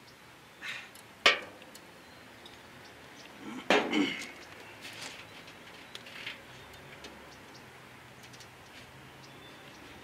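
Handling clatter from a steel brake line being bent around a glass beer bottle and fitted by hand. There is a sharp clink just over a second in, a louder knock and rattle around four seconds in, then a few light ticks.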